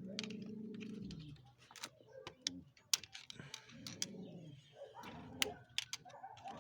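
Scattered sharp metal clicks and light scrapes of a screwdriver and circlip pliers working a retaining circlip off a motorcycle engine's clutch-side shaft.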